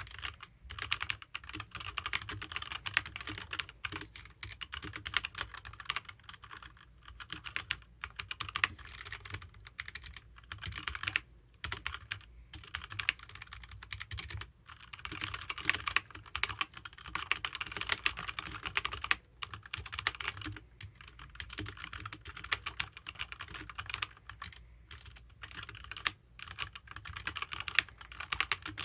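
Continuous fast typing on a HyperX Alloy Origins mechanical keyboard with HyperX Red linear switches: quick runs of key clicks and clacks, broken by brief pauses.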